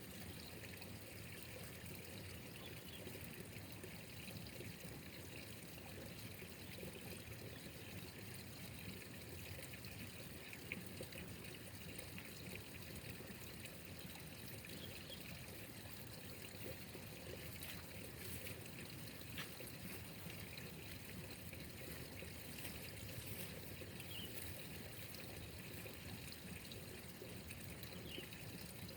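Water trickling steadily, with a few faint ticks.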